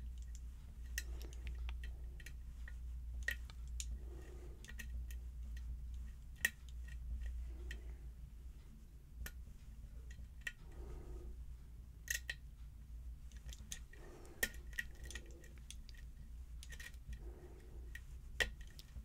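Faint, irregular small metallic clicks and scrapes of a lock pick and tension wrench working the pins of a pin-tumbler challenge lock.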